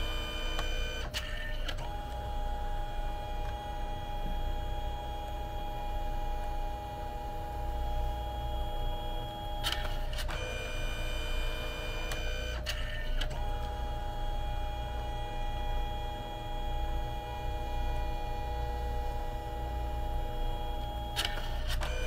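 Canon Selphy CP1300 dye-sublimation photo printer at work: a steady motor whine with a few fixed tones runs in two long stretches. Each stretch is broken by clicks and a change in tone, about a second in, about ten seconds in and again near the end, as the paper shuttles back and forth between colour passes.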